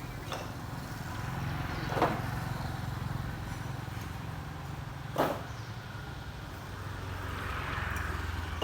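A steady low engine rumble, with two short sharp noises about two and five seconds in.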